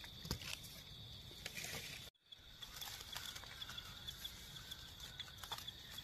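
Small crackles and rustles of dry leaf litter and twigs as a mushroom is cut from the forest floor with a knife, over a steady, high, pulsing insect trill. The sound drops out briefly about two seconds in.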